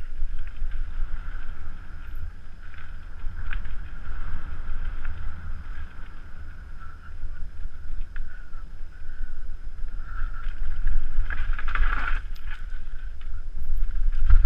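Helmet-camera audio of a mountain bike riding fast down forest singletrack: wind buffeting the microphone over tyres rolling on dirt and roots, with scattered rattles from the bike. The rattle grows louder and rougher about eleven seconds in.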